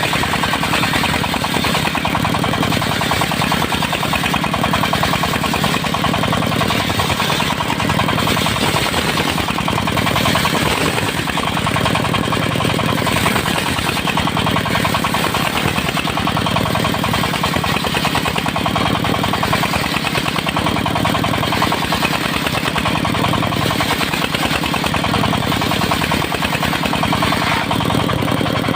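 Engine of a portable circular-saw sawmill running steadily under power, with a rapid knocking beat.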